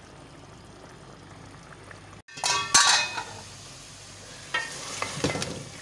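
Faint sound of a pot of mutton curry simmering, then, after a cut, a few ringing metal clinks against the pot, the loudest sound here. Near the end a spoon stirs and scrapes the cooked-down mutton as it sizzles in its oil.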